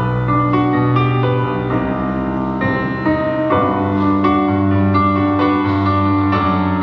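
Instrumental break of a piano-led backing track for a Christmas ballad, with long held notes and no singing.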